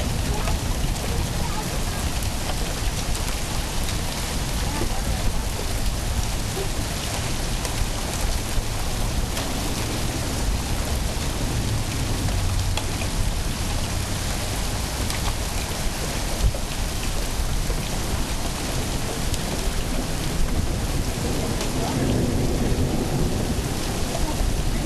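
Steady rain falling in a thunderstorm, with low thunder rumbling, strongest about halfway through.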